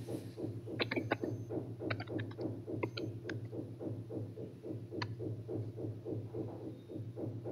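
A steady low hum that pulses rapidly and evenly, about five pulses a second, with a few scattered sharp clicks in the first half and one more about five seconds in.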